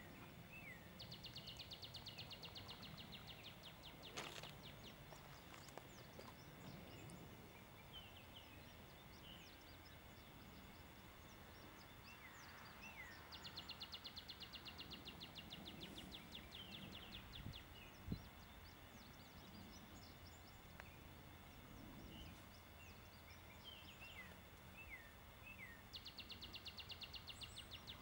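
Faint birdsong: a rapid high trill that comes three times, roughly every twelve seconds, with short chirps scattered in between.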